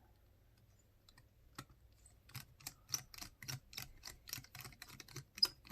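Small plastic buttons clicking in a quick, fairly even run of about three or four presses a second, as a flip phone's keypad is pressed over and over.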